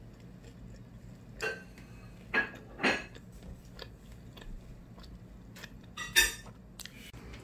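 Tableware clinking as dishes and metal cutlery are handled on a table: about four sharp clinks, the loudest about six seconds in, with a few lighter taps between them.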